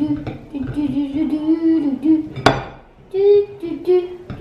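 A tune runs throughout, with one sharp clink about halfway through as plastic glue bottles are handled on a ceramic plate.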